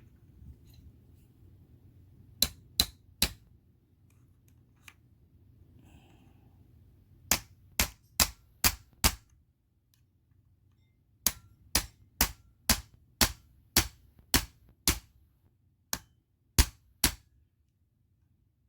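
Sharp metallic taps of a small hammer on a pin punch, driving trigger pins into an airgun's trigger housing. The taps come in short runs of three to eight, about two a second, with pauses between.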